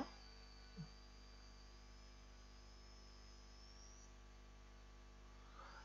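Near silence: a faint steady electrical hum with a faint high whine above it, and one brief soft sound about a second in.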